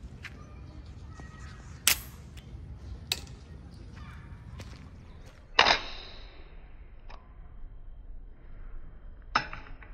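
Handheld toy spin-top launcher being fired and handled: a few sharp plastic clicks and snaps, five in all, the loudest a little over halfway through, two of them with a short ring. A steady low rumble underneath.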